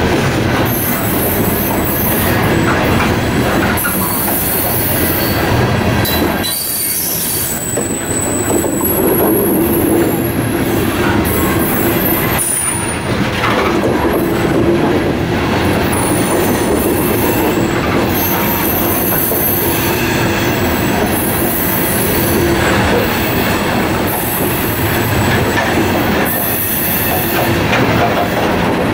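Loaded covered hopper cars of a grain train rolling past at close range, their steel wheels rumbling steadily on the rails, with thin high-pitched wheel squeals coming and going.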